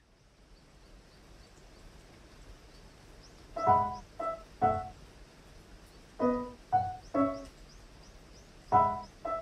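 Slow solo piano background music: after a few seconds of faint hiss, the piano comes in about three and a half seconds in, playing short three-note phrases with pauses between them, each note ringing and fading.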